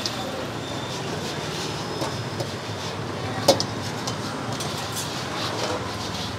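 Steady rushing noise of a street-food stall, with a few short sharp clicks; the loudest click comes about three and a half seconds in.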